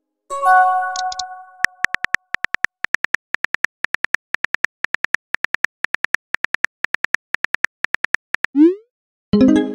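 Texting-app sound effects: a short electronic chime as a message appears, then a run of keyboard typing clicks, several a second, as the next message is typed out. Near the end comes a quick rising swoosh as the message is sent, followed by another short chime.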